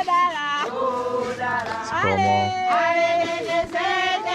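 A group of voices singing a song together, holding long notes and moving between pitches.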